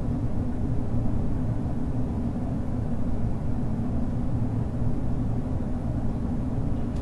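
Steady low rumbling room noise with a faint hum, unchanging throughout, with no distinct events.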